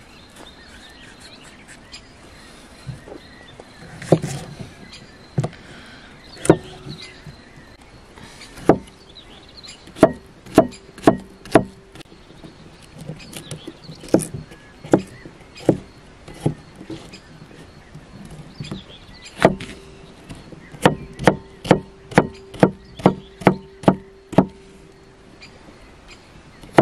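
Kitchen knife chopping cucumber on a thick wooden tree-trunk chopping board: sharp knocks, scattered at first, then in runs, ending with a quick run of about three a second.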